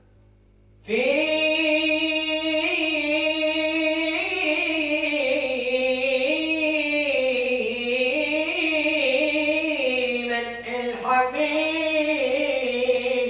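A man's solo voice singing one long, wavering melismatic line of an Islamic devotional chant (tawshih), beginning about a second in and ending just before the end.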